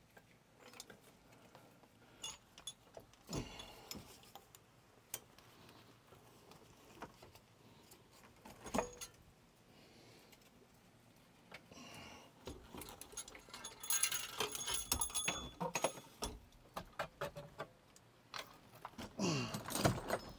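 Metal tools and loose engine parts clinking and rattling in the engine bay of a Mercruiser 5.0 V8 under teardown. Scattered taps give way to a longer spell of metallic jangling about two-thirds of the way in, with more clatter near the end.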